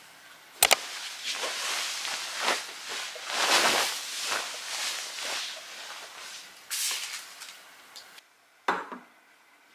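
Duvet and sheets rustling as a bed is made, a run of soft swishes as the cover is shaken and smoothed. Two sharp clicks come about half a second in and another near the end.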